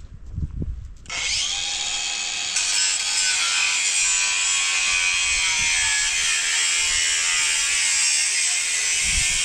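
Electric power tool starting about a second in and running steadily with a high-pitched whine.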